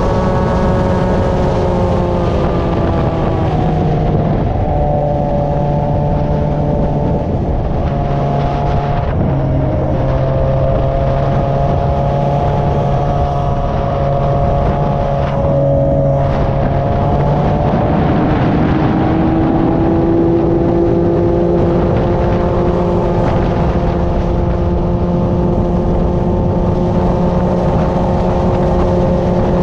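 Kawasaki ZX-636R inline-four sport-bike engine in a TRX450R ATV frame, running steadily with its pitch shifting up and down several times as engine speed changes.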